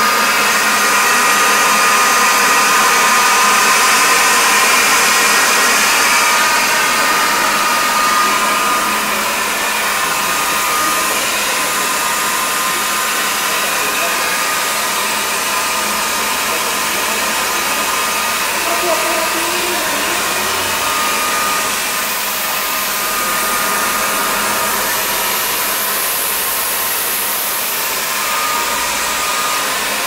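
Glatt Uniglatt laboratory fluid-bed dryer running: its blower gives a steady, loud rush of air with a thin steady whine.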